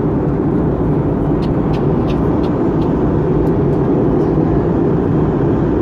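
Steady in-flight cabin noise of an Airbus A320 heard from a window seat beside the wing engine: a deep, even rumble of jet engine and airflow. A few faint light ticks sit on top between about one and a half and three and a half seconds in.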